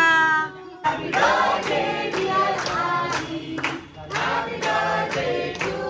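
A family group singing a birthday song together, clapping in time at about two to three claps a second. It opens with one voice holding a long note that cuts off abruptly just before the singing.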